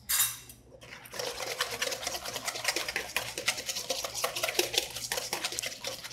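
Wire balloon whisk beating thick homemade mayonnaise in a stainless steel bowl: after a short louder swish at the start, quick, even clicking of the wires against the metal bowl from about a second in.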